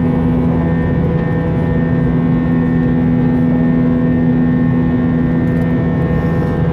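Steady cabin noise inside an Airbus A321 airliner in flight: the drone of its jet engines and rushing air, with a few steady humming tones running under it.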